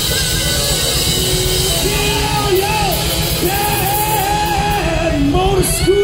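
Live hard-rock band playing: electric guitar, bass, drums and keyboards, loud and steady, with a male lead vocal singing over it, clearest from about two seconds in.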